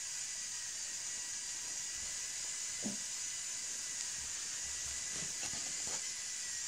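Electric motor of a LEGO Technic RC crane running steadily with a high, hissing whine as it raises the boom, with a few faint clicks from the mechanism partway through and near the end.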